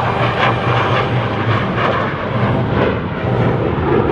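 Chengdu J-10 fighter jet flying a solo display maneuver, its jet engine noise steady and loud.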